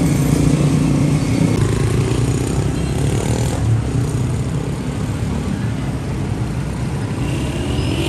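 Street traffic: motorcycle engines running steadily as motorbikes and a car pass close by, the engine hum strongest in the first second or so.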